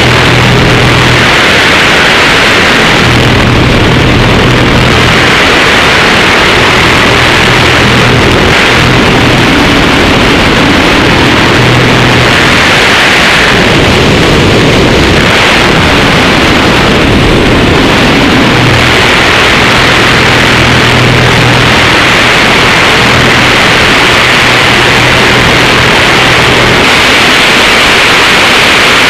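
Very loud wind rushing over a tail-mounted camera on a Pitts S-2B aerobatic biplane, with the drone of its six-cylinder Lycoming engine and propeller coming and going as power and attitude change through the manoeuvres.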